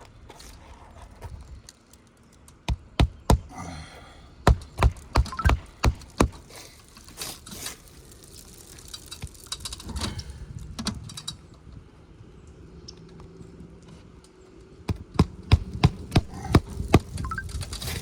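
Footsteps on an asphalt 3-tab shingle roof: two runs of sharp knocks at about three a second, one a few seconds in and one near the end.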